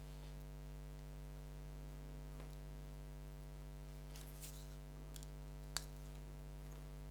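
Steady low electrical hum with a few faint clicks from small parts and tools being handled on a workbench, and one sharp click a little under six seconds in.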